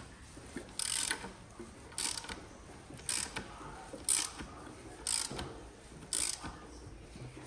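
Ratchet wrench clicking in six short runs about a second apart as the BMW N46 engine is turned over by hand at the crankshaft after fitting the timing chain.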